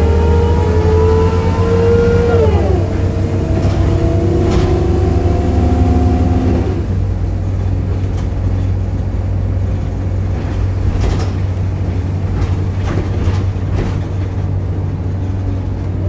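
Volvo B7RLE bus heard from inside the saloon, driveline groaning as the bus pulls away: a rising tonal groan that drops sharply in pitch at a gear change about two and a half seconds in, holds steady, then stops after about six and a half seconds. The bus then rolls on with a steady low engine rumble and a few rattles from the body.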